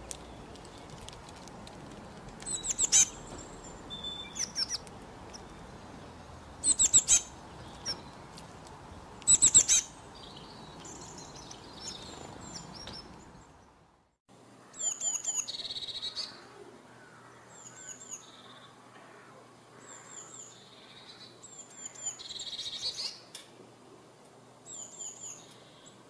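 Small songbirds chirping: short, high calls in little clusters every second or two. About halfway through, the sound cuts out for a moment and the background changes, then the chirping goes on.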